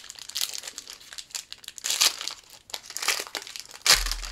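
The foil wrapper of a 1993 Upper Deck Series One baseball card pack crinkling and tearing as it is opened by hand. Irregular crackles peak about two seconds in, then a louder crackle and a low thump come near the end.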